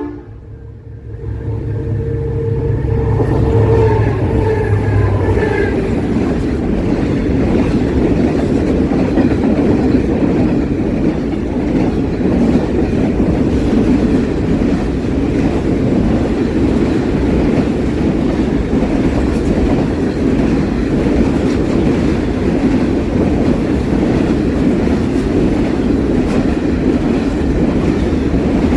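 Grain freight train passing at close range. The diesel locomotive's engine note is heard for the first few seconds, growing louder and then dropping away about five seconds in. Then comes a long steady rumble of grain wagons rolling by, their wheels clattering over the rail joints.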